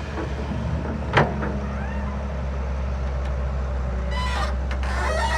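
Cat excavator's diesel engine running steadily, with one sharp metallic clank about a second in.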